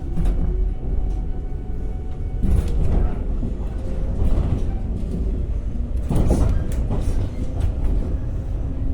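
Shinano Railway 115-series electric train heard from inside the car as it pulls away and gathers speed: low running rumble with a motor whine slowly rising in pitch, and a few sharp clacks of the wheels over rail joints or points.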